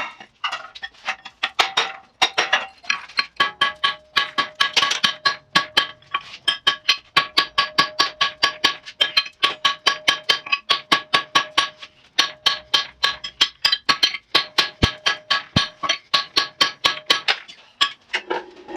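Cross-peen hammer striking hot steel on an anvil in a steady rhythm of about three blows a second, each blow ringing, with a few short pauses between runs: drawing down the cheeks of a hammer head.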